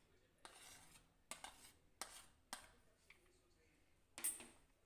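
Faint clinks and scrapes of a steel spoon against a plate and a stainless steel bowl as chopped onion is scraped into the bowl, about half a dozen short knocks with the loudest one near the end.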